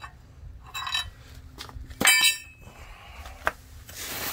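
Pieces of steel angle bracket clinking together. A sharp metallic clink rings briefly about two seconds in, with a fainter clink before it, a single click after, and a rustling noise near the end.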